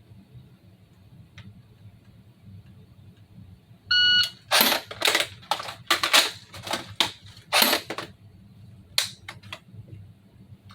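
A shot timer gives its start beep about four seconds in, followed by a quick run of sharp plastic clacks from an airsoft gun being worked and fired, with three fainter clicks a little later.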